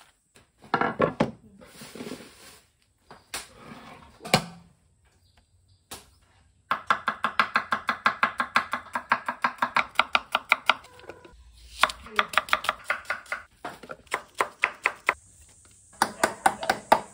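Kitchen knife chopping garlic on a wooden cutting board in quick, even strokes, about six a second. Near the end comes the knocking of a wooden pestle pounding in a wooden mortar.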